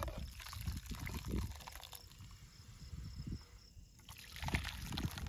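Thick dal being ladled and poured from a steel pot into steel bowls: wet sloshing and glugging, heaviest at the start and again near the end.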